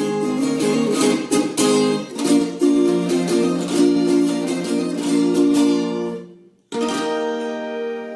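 Viola caipira being strummed and plucked in quick chords. The playing dies away after about six seconds, then a single chord is struck and left to ring.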